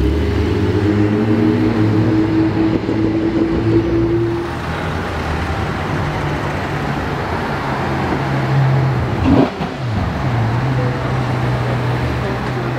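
A Porsche 992 Turbo S Cabriolet's twin-turbo flat-six pulls away on a steady engine note. Then a Ferrari F12 Berlinetta's V12 runs at low speed over road noise, with a short rise and fall in pitch about nine seconds in.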